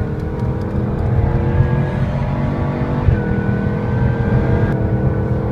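Supercharged V8 of a Jaguar F-Type R coupe pulling hard on a racetrack, heard from inside the cabin: its note climbs steadily, breaks off about two and a half seconds in for an upshift, then climbs again from a lower pitch.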